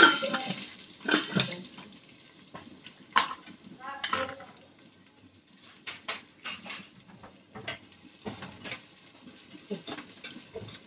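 Chopped onions scraped off a plastic board into hot oil in a metal pot, sizzling, with several knocks against the pot in the first few seconds. Then a spoon clinks and scrapes against the pot as it stirs the onions to fry them.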